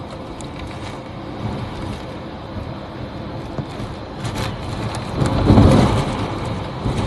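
Hurricane wind and rain blowing steadily, with a louder gust swelling up about five seconds in and easing off.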